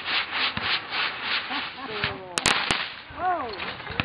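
Small ground fountain firework hissing and sputtering as it burns out, the spray fading away about halfway through. Three sharp cracks follow soon after.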